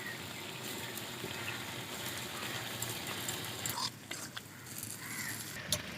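Ridge gourd and sesame-paste curry sizzling and simmering in a kadai, a steady hiss, with a few light scrapes and clicks of a spatula stirring it around the middle.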